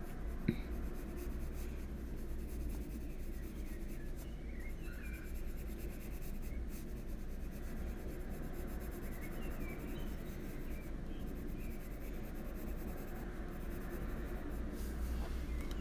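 Faber-Castell Polychromos colored pencil scratching steadily across paper in short shading strokes, with a single sharp tap about half a second in.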